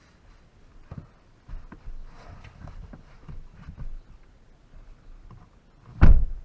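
Irregular soft knocks and handling rustles, with one loud thump about six seconds in.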